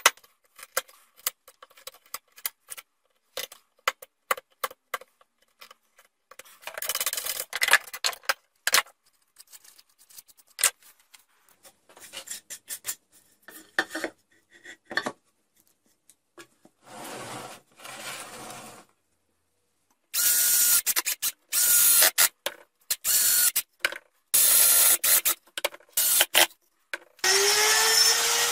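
Wood chisel tapping and paring into a pine board in scattered knocks and short scraping strokes, then a power tool running loud in short bursts. Near the end a trim router motor starts with a rising whine and keeps running.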